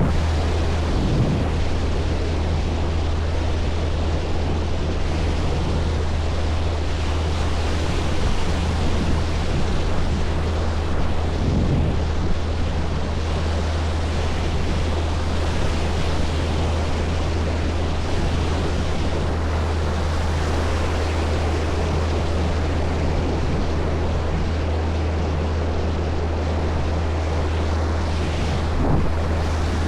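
Steady low engine hum of a boat under way, mixed with rushing water and wind buffeting the microphone.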